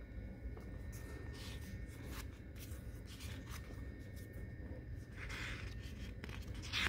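Pages of a sticker book being turned and smoothed flat by hand: faint paper rustles and light rubs, with a louder rustle about five seconds in and another right at the end.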